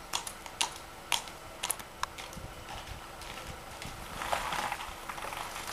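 A few sharp, irregularly spaced clicks in the first two seconds over a steady background, then a soft rushing noise around four seconds in.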